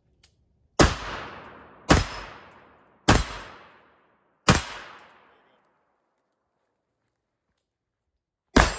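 AR-style semi-automatic rifle firing four shots about a second apart, each ringing out as it fades. After a pause of about four seconds, two more shots come in quick succession near the end.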